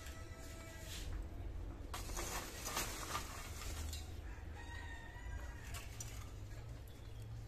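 A rooster crowing, with calls near the start and again about two-thirds of the way through.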